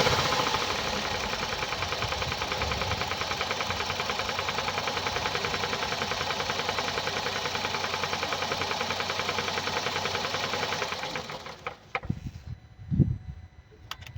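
Hyundai i30's 2.0-litre petrol engine idling with a fast, even ticking, which the seller attributes to defective hydraulic lifters. The engine stops about eleven seconds in, followed by a few clicks and a thump.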